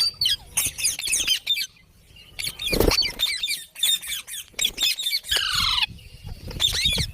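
Ringneck parakeet chattering in rapid high chirps and squeaks, with a longer harsh squawk a little after five seconds in. A brief thump about three seconds in is the loudest moment.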